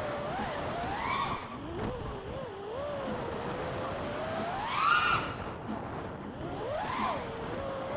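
FPV freestyle quadcopter's brushless motors (Axisflying 2207 1960kv on HQ J37 props) whining, the pitch rising and falling with the throttle. It surges up about a second in, again to its loudest and highest about five seconds in, and once more near seven seconds.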